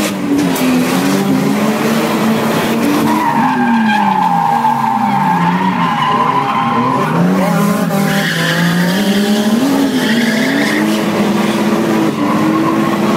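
Toyota Supra drift car heard from inside the cabin: the engine revs rise and fall again and again with the throttle. The tyres squeal through most of the slide, strongest from a few seconds in until near the end.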